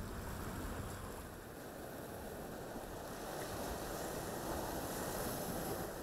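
Surf washing over a rocky shore: a steady rush of water that swells louder in the second half.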